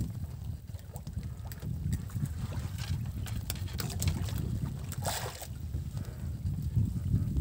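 Wind buffeting the microphone over the low rumble of a small fishing boat on open water, with scattered small knocks and a short rushing splash-like noise about five seconds in.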